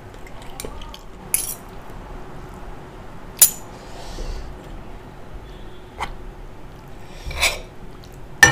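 Metal spoon and fork clinking and scraping against ceramic bowls while eating: about half a dozen scattered sharp clinks, the loudest about three and a half seconds in.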